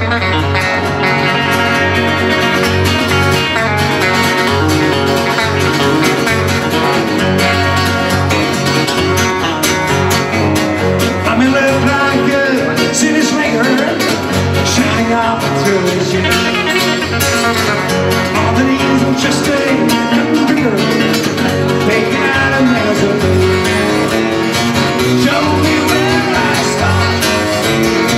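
Live band music: a Fender electric guitar and an acoustic guitar played together, going on steadily.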